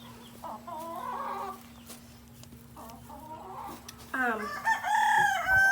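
Hens clucking softly, then about four seconds in a rooster starts a long, loud crow.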